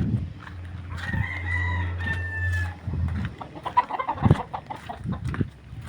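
A rooster crowing once, a long call of nearly two seconds about a second in, followed by a shorter call, among scattered knocks and steps.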